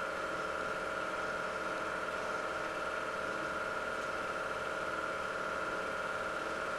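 Steady mechanical hum of an 8 mm film projector running, with a few held tones and no change in pitch or level.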